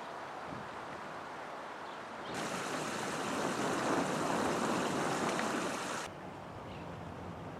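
Steady outdoor rushing noise with no clear single source. A louder, hissier stretch cuts in abruptly a little over two seconds in and cuts out just as abruptly about six seconds in.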